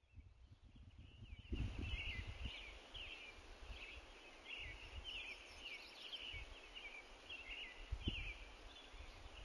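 Faint outdoor ambience: a steady hiss and low rumble with short high chirps repeating about twice a second, coming in about a second and a half in. A couple of low thumps stand out, one as the ambience comes in and one near the end.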